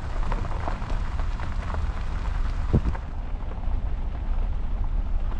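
Wind buffeting the microphone outdoors: a steady low rumble with crackle, and one brief short squeak a little past the middle.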